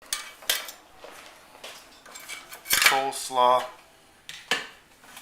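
Dishes and utensils being handled: a string of sharp clinks and knocks, about half a dozen spread irregularly over a few seconds.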